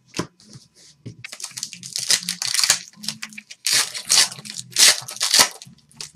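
Foil trading-card pack wrapper being torn open and crinkled by hand, in two long stretches of loud crackling.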